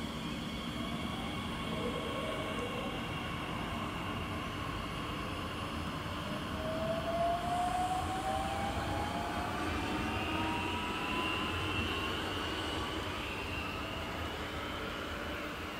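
Talent 2 S-Bahn electric multiple unit pulling away from the platform, its electric drive giving a whine that rises in pitch as the train accelerates, over the rumble of the train running on the track.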